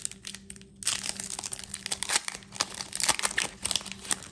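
Foil wrapper of a Panini Revolution basketball card pack crinkling as hands handle it, a dense run of crackles starting about a second in.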